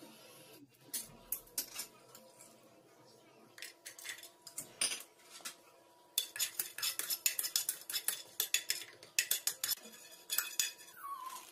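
Metal kitchen utensils clinking and knocking against pots and vessels, in scattered taps at first and then dense runs of quick clinks in the second half.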